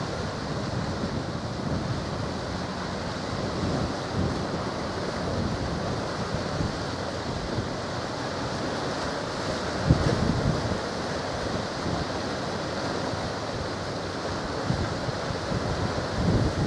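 Steady outdoor rush of wind and water. Gusts of wind buffet the microphone with low thumps about ten seconds in and again near the end.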